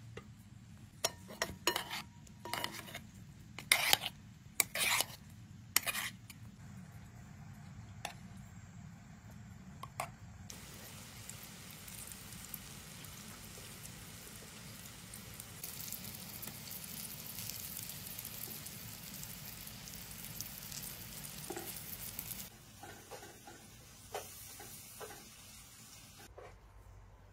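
Knocks and clatter of food being handled in the first six seconds, then food frying in a pan of hot oil: a steady sizzle that grows louder for several seconds in the middle and drops off a few seconds before the end.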